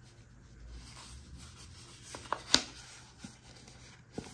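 Gloved hands handling and opening a folded paper booklet: faint paper rubbing and rustling with a few light clicks, the sharpest about two and a half seconds in.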